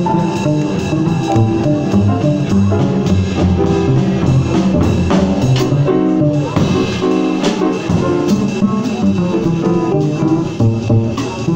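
Live jazz on a plucked double bass and a drum kit: the bass plays a steady line of short stepped notes while the drummer keeps time on the cymbals and drums.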